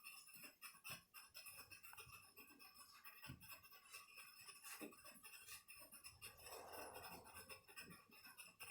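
Faint, scattered small clicks and scratches of a precision screwdriver turning tiny screws into a laptop's bottom panel, against quiet room tone.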